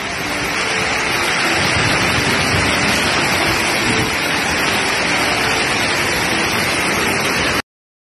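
Heavy rain mixed with hail pelting the ground, a steady dense downpour that cuts off suddenly near the end.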